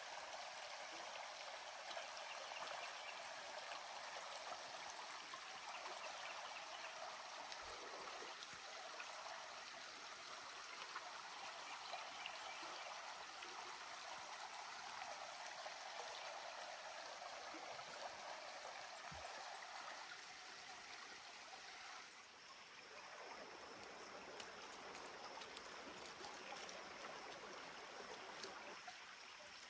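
Shallow forest creek running over rocks: a steady rush of water with trickling.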